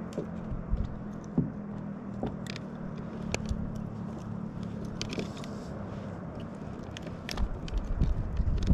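A steady low engine hum, with scattered sharp clicks and knocks over it.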